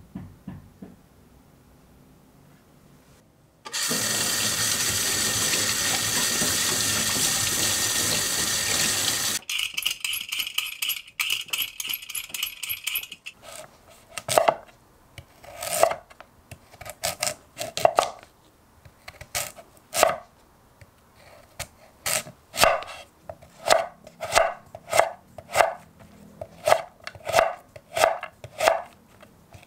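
A loud steady hiss for several seconds, then a chef's knife cutting a raw sweet potato into matchsticks on a wooden board, with sharp strokes about once a second that quicken near the end.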